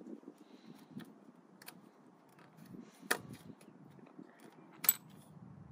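Faint handling noise of a bicycle seat clamp being fitted by hand at the top of the seat tube, with light ticks and two sharp clicks, about three and five seconds in.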